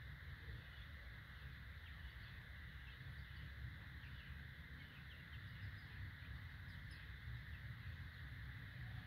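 Faint short peeps now and then from young Bangkok game chickens, over a steady low outdoor background hum and hiss.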